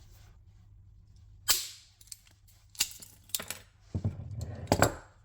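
Hand metal punch working a 2 mm hole through a thin stainless-steel blank: a series of sharp clicks and snaps, the loudest about one and a half seconds in, followed by several lighter clicks.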